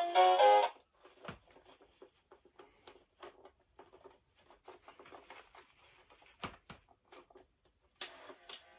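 The Santa toy's tune cuts off under a second in, followed by a long run of small, irregular plastic clicks and rattles as the toy's gear mechanism is handled. A short noisy burst comes near the end.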